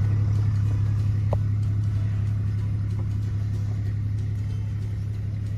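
Engine of a small buggy running steadily, a low drone that slowly fades, with one brief high squeak about a second and a half in.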